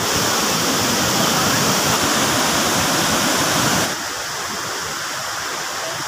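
Water rushing over the rocks of a waterfall cascade, a steady, even roar of white water. About four seconds in it drops abruptly to a quieter rush.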